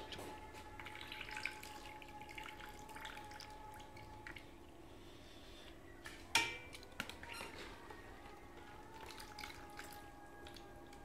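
Wet soaked rice being scooped with a metal slotted spoon from a plastic bowl and dropped into a pot of broth, with water dripping and splashing. A sharp clink of the spoon against the pot about six seconds in, over a faint steady hum.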